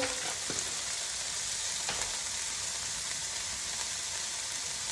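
Diced chicken breast and vegetables sizzling steadily in a hot frying pan, with a couple of faint ticks in the first two seconds.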